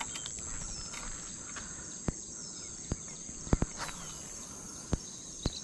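Steady high-pitched insect chorus, with a few faint bird chirps. About half a dozen sharp clicks or knocks are spread through it, the loudest about three and a half seconds in.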